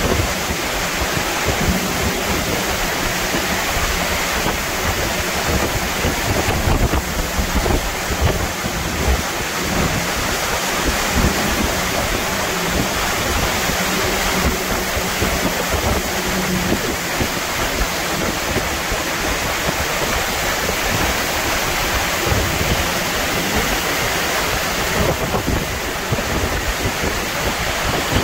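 Hurricane eyewall wind and heavy driving rain, a steady roar, with gusts buffeting the microphone.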